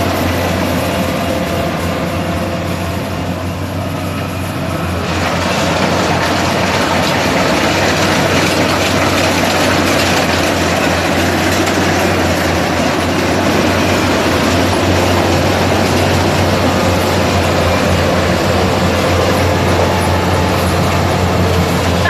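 Kubota combine harvester running while it harvests, a steady engine hum under a dense mechanical clatter from the header and threshing works. The clatter grows louder about five seconds in.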